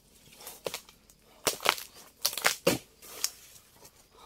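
Irregular sharp cracks and crunches, several in quick succession midway, as a dodos (chisel blade on a long pole) chops into the bases of oil palm fronds.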